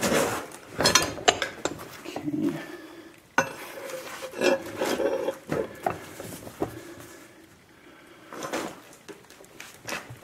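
Half-inch steel rebar being bent in a bench vise: irregular metal clanking and scraping as the rod is levered and shifted in the jaws, with one sharp knock about three and a half seconds in.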